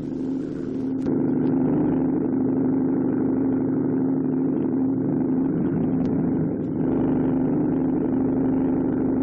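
Landing craft engines droning steadily, a continuous low hum that grows louder about a second in.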